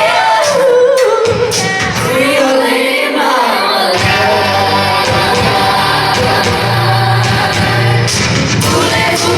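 Music with singing: several voices sing a melody together over an accompaniment.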